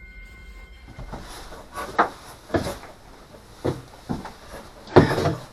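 Irregular knocks and bumps of hands and tools working inside a fiberglass tank compartment on a boat, four or so in all, the loudest a thump near the end.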